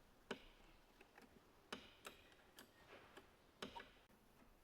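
Faint, irregular sharp clicks and taps of a wrench at work on the skid steer door's bolts, about half a dozen spread over a few seconds.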